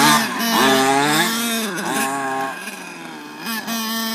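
Small two-stroke engine of a radio-controlled truck revving up and down several times, then holding a steadier note near the end.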